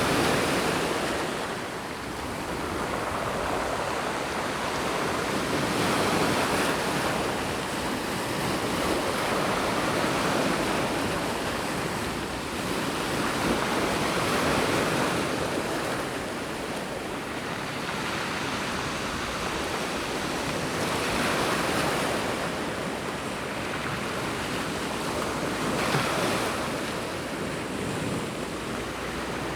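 Sea waves breaking and washing onto the beach, the surf swelling and easing every few seconds.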